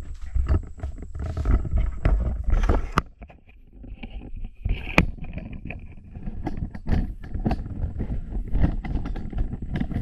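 Wind rumbling on the microphone, with knocks and rustles from the camera being handled and carried about. A brief high chirp comes about four seconds in.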